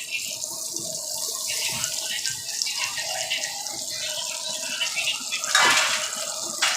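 Fish frying in hot oil: a steady sizzle, with a brief louder surge a little over five seconds in.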